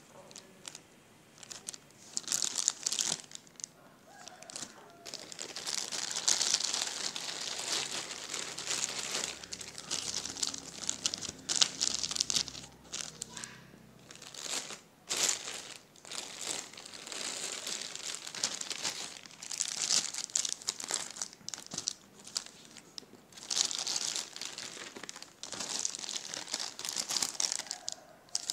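Clear plastic packaging bags crinkling as they are handled and turned over, in irregular spells with short pauses between.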